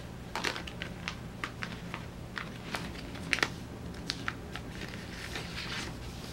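Paper sticker sheets being handled and sorted, making scattered crinkles and sharp little clicks, with two louder snaps close together about three and a half seconds in. A faint steady low hum runs underneath.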